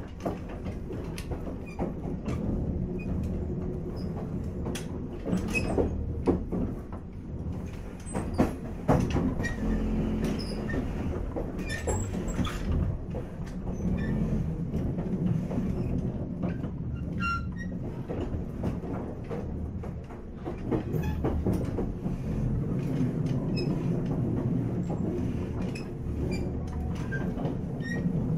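Running sound inside a JR 485 series (3000 subseries) electric train's motor car: a steady low rumble of the train on the move, with frequent irregular clicks and clacks of the wheels over the track.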